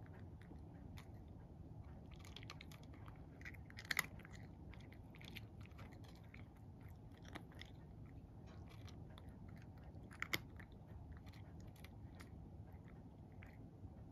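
Cat eating from a wooden dish: faint, irregular chewing and mouth clicks, with two louder clicks about four seconds in and about ten seconds in.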